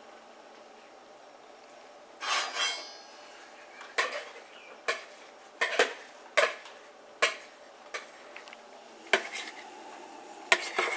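A kitchen utensil clinking and knocking against a mixing bowl and frying pan as pancake batter is scraped out into the pan: a short clatter about two seconds in, then single sharp knocks about once a second, and a few more near the end.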